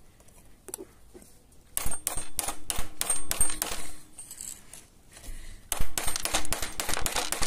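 Two runs of rapid, hard clattering clicks, each lasting about two seconds: the first begins about two seconds in, the second near the end.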